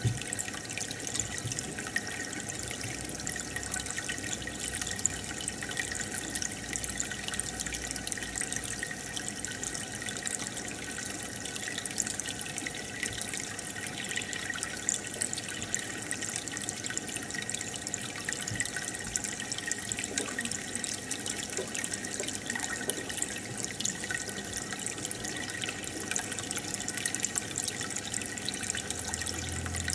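Aquarium water bubbling and trickling steadily from the air bubbler and filter, a continuous wash of small bubble pops.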